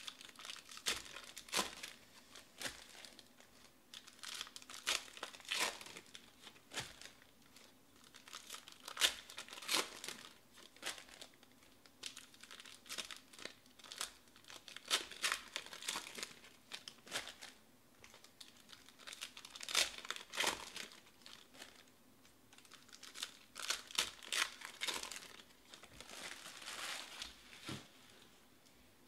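Foil packs of baseball cards being torn open and their wrappers crinkled, in irregular bursts that stop shortly before the end.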